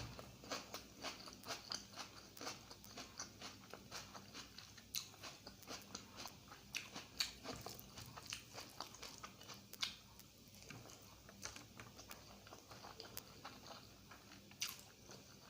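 Close-miked chewing and biting of egg curry and rice, with rapid small clicking mouth sounds that thin out after about ten seconds.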